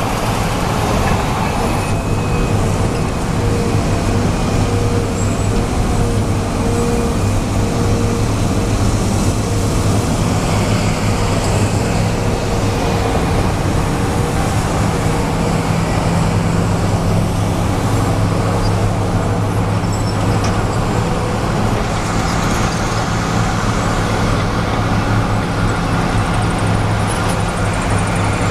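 Heavy diesel engines run at a steady low drone, with road traffic passing close by.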